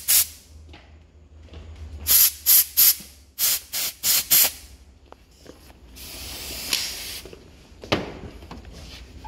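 Compressed-air blow gun giving short, sharp blasts of air through a clogged windshield-washer jet to clear it: seven blasts, a group of three and then a quicker group of four. A longer, softer hiss follows, then a single knock near the end.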